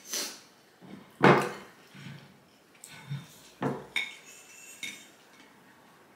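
Eating utensils knocking and clinking against dishes at a meal table: a handful of short, sharp clinks, the loudest about a second in.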